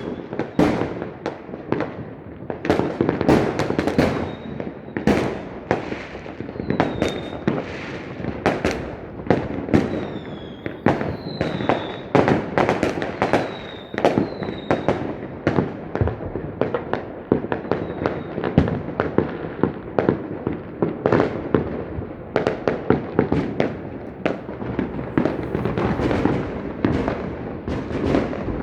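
A fireworks display: a continuous barrage of overlapping bangs, several a second, over a constant crackle. There are a few short high whistles in the middle.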